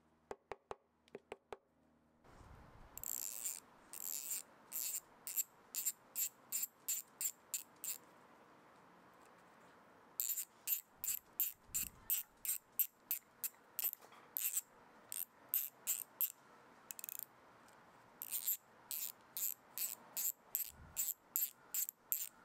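Vintage S-K 40970 1/4-inch drive ratchet's pawl clicking as the handle is worked back and forth, in runs of sharp, quick clicks, about two to three a second, with short pauses between runs.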